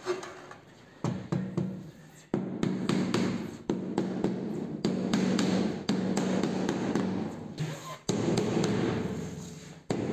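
Rubber mallet knocking on a large porcelain floor tile, a run of repeated dull knocks as the tile is bedded down and levelled into the mortar beneath it.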